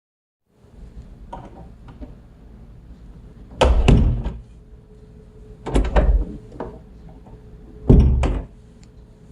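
A door being worked: three loud thuds about two seconds apart, each with a short rattle, with smaller clicks and knocks between them over a low steady rumble.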